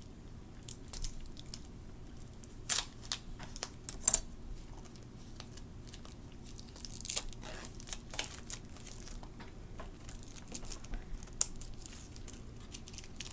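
Plastic shrink wrap being torn and crinkled off a tarot deck: scattered crackles and snaps, the sharpest about four seconds in.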